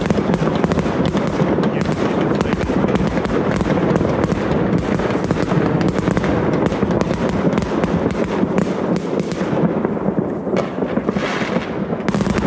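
Many fireworks going off at once: a dense, continuous barrage of bangs and crackles from bursting aerial shells, thinning briefly near the end.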